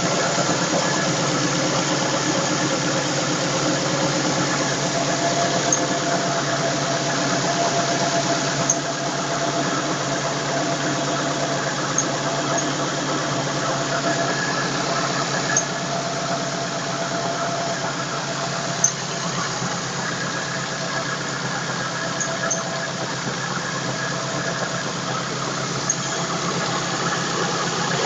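Ford Focus 2.0 Zetec four-cylinder engine running steadily with a squeal over it, a wavering tone that comes and goes. This is the bad noise the owner is recording; its cause is not named.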